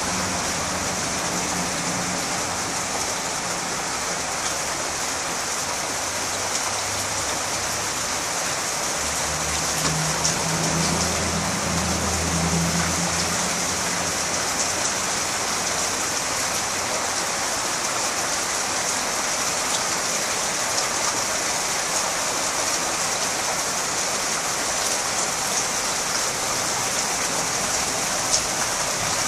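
Steady rain falling on garden foliage and ground: a dense, even hiss with scattered drop ticks. A low rumble swells about ten seconds in and fades a few seconds later.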